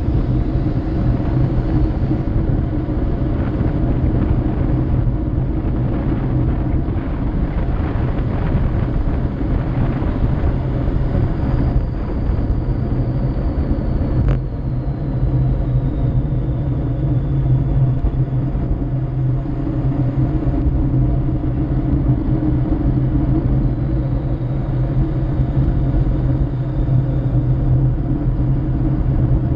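Steady heavy wind noise on the microphone of a bicycle descending fast on a mountain road, with the low rumble of its tyres on rough asphalt. One sharp click about halfway through.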